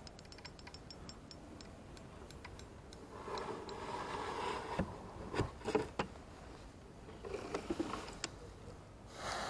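A hooked fish being landed into a wooden boat: splashing water as the landing net goes in, then several sharp knocks against the boat about halfway through, and more splashing and knocking later.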